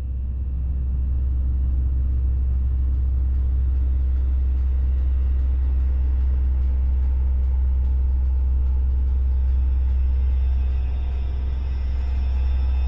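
Steady deep rumble, easing off briefly about eleven seconds in.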